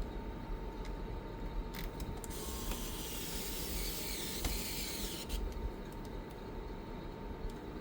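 Small clicks and handling noises from laptop parts being worked on, with a steady hiss lasting about three seconds in the middle.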